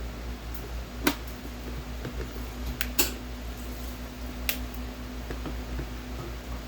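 A few short, sharp clicks and taps of the plastic coffee maker being handled, about four in all, over a steady low hum.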